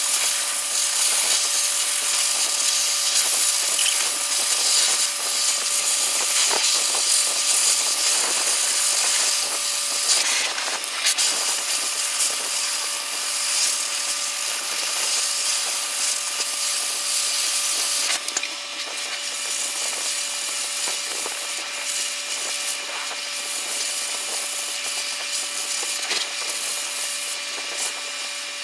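Electric dog grooming clipper running with a comb attachment, a steady buzz with scattered small clicks as the blade moves through the dog's coat; it gets a little quieter about two-thirds of the way through.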